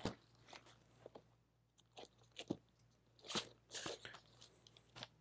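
Vinyl record jackets being flipped and shuffled in a record bin: a scatter of soft, irregular taps and crinkles.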